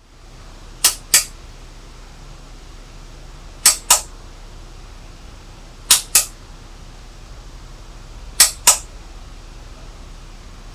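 Sharp clicks in pairs, the two clicks of each pair about a third of a second apart, repeating four times at an even pace of a pair every two and a half seconds over a faint steady hiss.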